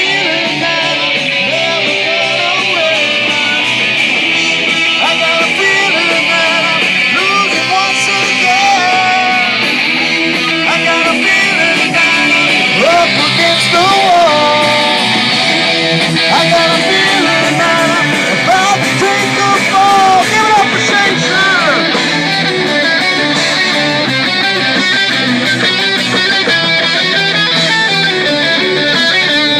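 A rock band playing a song, led by guitars, loud and steady.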